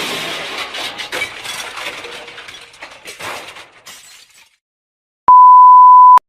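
Glass shattering, the crash giving way to scattered tinkling shards that die away over about four seconds. After a short silence comes a single loud, steady, high beep lasting about a second.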